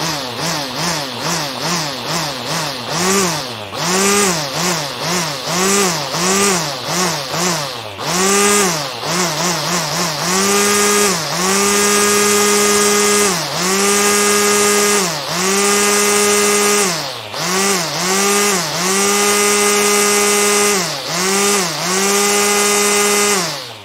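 Small high-revving engine revved in quick blips about twice a second, then held at a steady high pitch for one to two seconds at a time with brief drops between; it cuts off just before the end.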